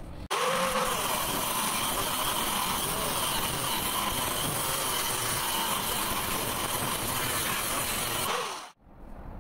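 Abrasive cut-off wheel slicing through a solid steel block, a steady grinding cut with a constant high whine, splitting the block in half. It starts abruptly just after the start and cuts off sharply near the end.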